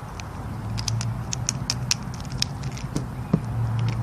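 Pink MoYu AoLong GT 3x3 plastic speedcube being handled and turned: quick, irregular light plastic clicks, with one sharper click about three seconds in, over a steady low hum.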